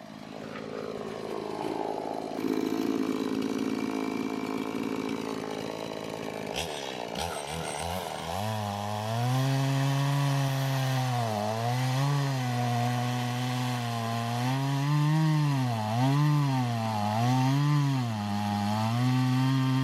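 Chainsaw cutting into a black walnut log. Its note is rough for the first few seconds, then a steady engine pitch sets in about six seconds in and sags and recovers several times as the chain loads in the wood.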